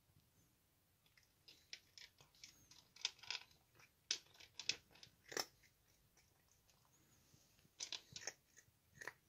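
Cat crunching dry kibble: a scatter of short, irregular crunches, with a pause of about two seconds past the middle before a few more bites.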